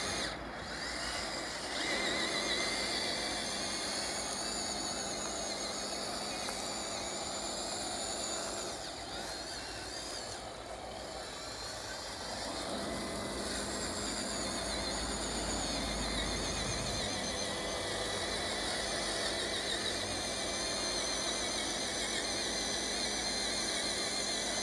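HG P802 RC scale truck's electric drive motor and all-metal gear-reduction transmission whining under load as it crawls over wet grass, the pitch wavering up and down with the throttle.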